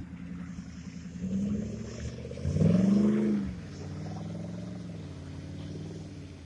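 Jeep Grand Cherokee ZJ engine revving while driving through mud. The revs climb to a loud peak about two and a half seconds in, drop back after about a second, then the engine runs steadier as the Jeep pulls away.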